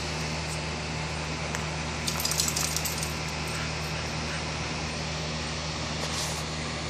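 A steady low mechanical hum, with a brief patch of light metallic jingling about two seconds in and a short high hiss near the end.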